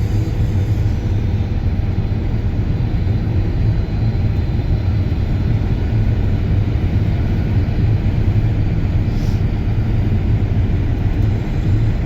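John Deere combine harvesting wheat, heard from inside the cab: a steady low drone of the engine and machinery running at constant speed.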